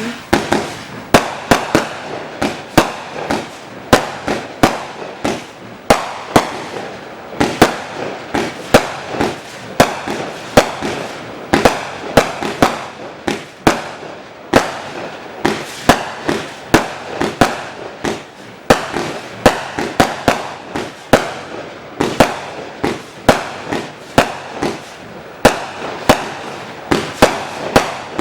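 A 256-shot, 0.8-inch compound fireworks cake firing: a rapid string of sharp bangs, about two a second, each with a short fading crackle, with a steady hiss between shots.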